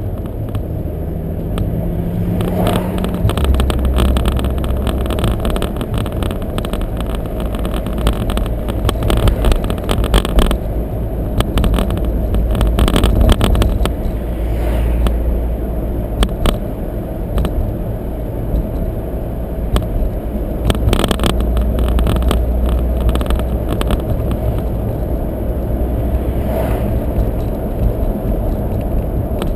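Road noise from inside a moving car: a steady engine and tyre rumble, with scattered knocks and rattles from bumps in the road.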